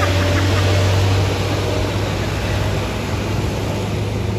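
Diesel engine of a light truck loaded high with sugarcane, pulling up a climb as it passes close by: a steady low drone that eases off after about a second.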